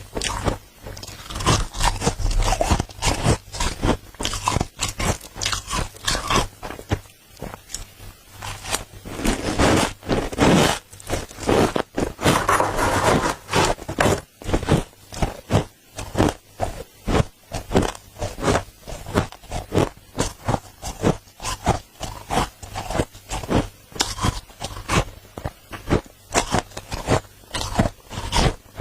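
Dry freezer frost crunching and squeaking, scraped up with a spoon and bitten and chewed in a quick run of sharp crunches, with a few longer scraping stretches near the middle.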